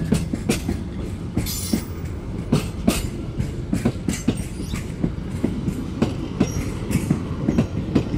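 Narrow-gauge railway carriages rolling past over a low rumble, their wheels clacking over the rail joints in a steady, uneven run of knocks. There is a brief high screech about a second and a half in.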